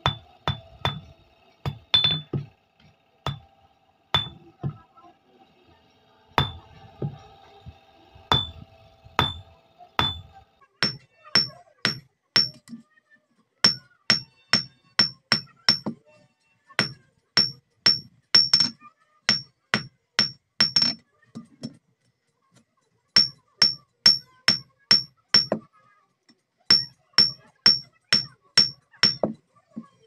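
Hand hammer striking a steel bar on a steel block anvil in runs of blows, about three a second with short pauses between runs. Each blow is a sharp metallic clink with a short ring, and the ring is higher-pitched from about a third of the way in.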